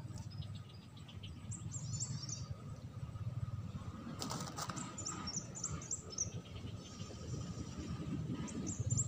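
Birds chirping faintly in short bursts of high, quick notes, three times over a low outdoor rumble, with a brief rustle in the middle.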